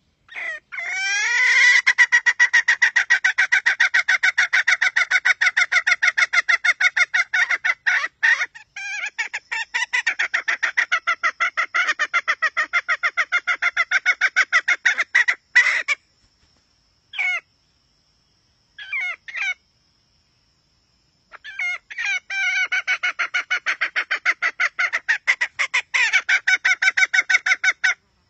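Red junglefowl hen calling in long runs of fast, evenly spaced clucks, the kind of hen call used to lure wild junglefowl. The runs break off about halfway, with two short bursts, then start again.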